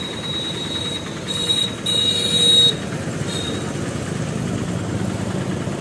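Road traffic passing: engines of motorcycles, cars and auto-rickshaws going by in a steady rush. A brief high-pitched tone sounds from about one and a half to two and a half seconds in.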